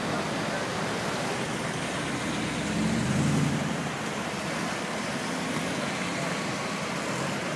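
Street traffic: cars driving slowly past, one passing close and louder about three seconds in, over a steady background of city traffic noise.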